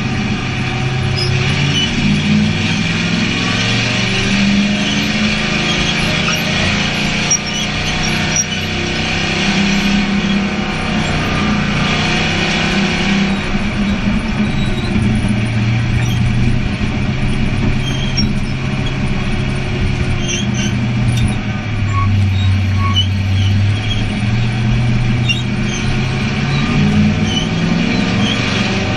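Stock-car-style race car engine heard from inside the cockpit at racing speed. Its pitch climbs and falls again several times as the car accelerates and lifts around the short oval.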